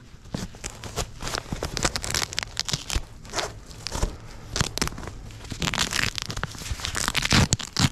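Rustling, scraping and clicking handling noise close on the camera's microphone as a GoPro strap is fitted and adjusted, with irregular knocks scattered through.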